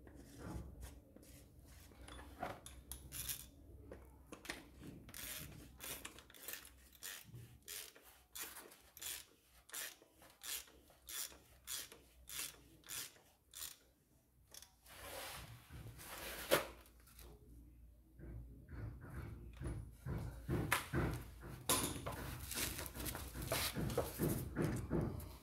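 Socket ratchet tightening the oil filter housing cap on a Renault-built 2.0 dCi van engine: short clicking strokes about two a second, a louder click about two-thirds of the way through, then quicker, denser clicking near the end.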